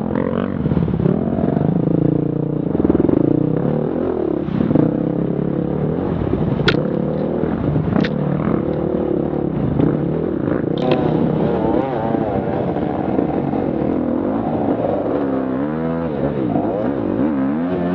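Enduro motorcycle engines running on a muddy trail, the revs rising and falling with the throttle, with three sharp knocks in the middle. Near the end the revs swing up and down quickly several times.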